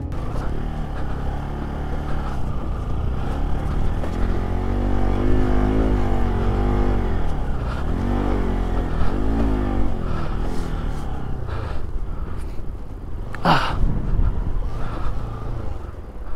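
Motorcycle engine running on a rough track, revving up and down several times in the middle. There is a single sharp, loud whoosh-like knock near the end.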